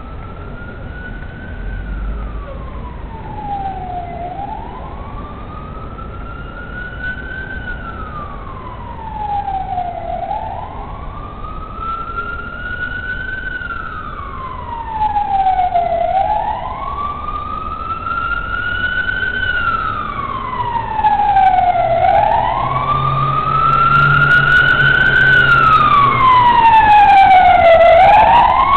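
Police van's wail siren, rising and falling in a slow cycle about every six seconds and growing steadily louder as the van approaches, with a low engine rumble underneath near the end.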